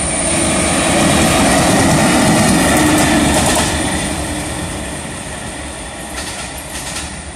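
An Indian Railways WAP4 electric locomotive running light passes close by, the rolling noise of its wheels on the rails loudest a second or two in, then fading steadily as it pulls away, with a few faint clicks near the end.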